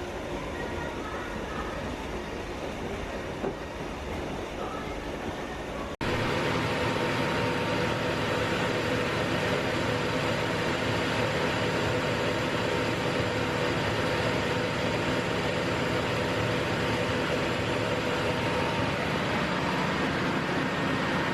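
Imesa LM30 industrial washing machine running, a steady mechanical rumble with a motor whine. About six seconds in the sound jumps abruptly to a louder, steadier run.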